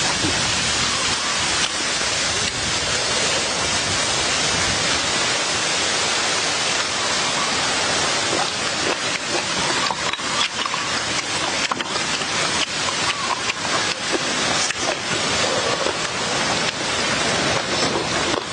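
Steady, even hiss, with scattered faint clicks in the second half.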